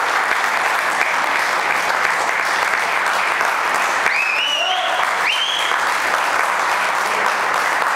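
Audience applauding steadily, with two short high calls rising above the clapping about four and five seconds in.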